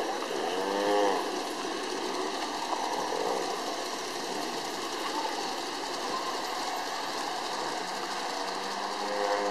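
Large-scale model train running along its track, a steady whirring of the small electric motor and wheels on rail. About a second in there is a short wavering voice-like sound, the loudest moment.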